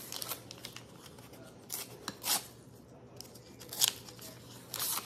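Paper wrapper of a pair of disposable wooden chopsticks being torn open and crinkled by hand, in several short rips and rustles.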